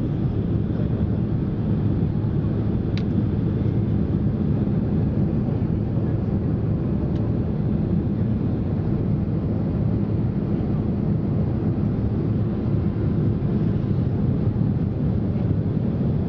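Steady cabin noise of a Boeing 767 in flight during its descent: the engines and airflow make an even, low-pitched rush that does not change. Two faint clicks come about 3 and 7 seconds in.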